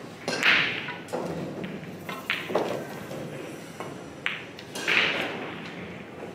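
Pool hall sounds: about six sharp taps and knocks at irregular spacing, each ringing briefly in the large room, loudest about half a second in and again about five seconds in. They come from the cue ball rolling to rest on the table and the player's footsteps as he walks round it.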